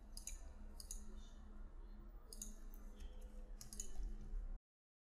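Computer mouse clicking several times, sharp single clicks at irregular intervals over a low steady hum, then the sound cuts off suddenly near the end.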